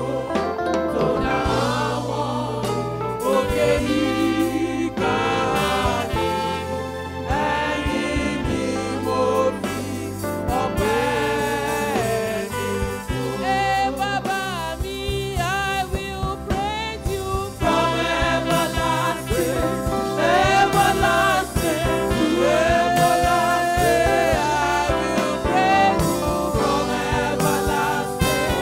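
Live gospel praise singing: a woman leads into a microphone with backing singers joining in, over a steady instrumental accompaniment with a beat.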